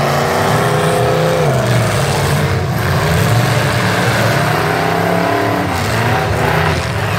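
Demolition derby pickup trucks' engines revving hard, the pitch rising and falling again and again as the trucks push and manoeuvre.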